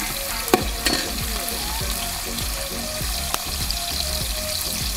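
Chopped onions frying in hot oil with whole spices, a steady sizzle with a few sharp clicks. The onions are being fried toward brown.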